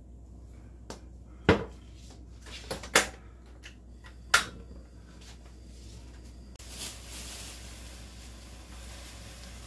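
Several sharp clacks and knocks as a plastic-capped oil bottle is handled, closed and set down next to a stainless steel pot. About two-thirds of the way through, a steady hiss starts suddenly and keeps going: the gas burner under the pot lit and running.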